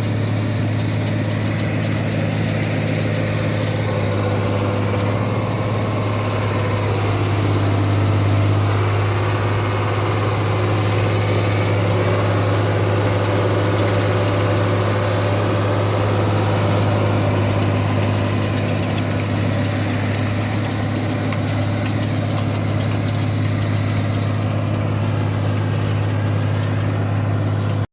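Farm machinery's diesel engine running steadily with a strong low hum, swelling slightly for a few seconds.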